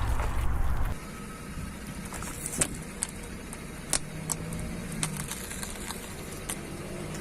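A car engine rumbling loudly, cut off suddenly about a second in. Then a quieter steady car hum with a few scattered sharp cracks of things crunching under its tyres.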